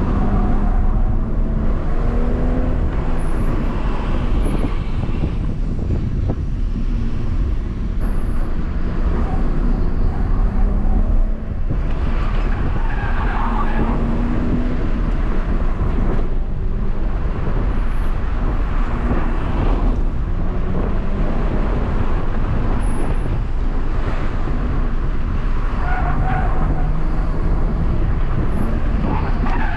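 BMW M140i's 3.0-litre turbocharged straight-six heard from inside the cabin, pulling hard with revs rising and falling through the bends and gear changes. Steady road and tyre noise lies underneath.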